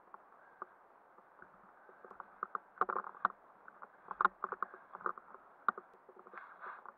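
Rustling of clothing, gear and dry leaf litter as a player drops to lie prone on the forest floor, with a run of sharp clicks and knocks about two seconds in and several more single clicks after.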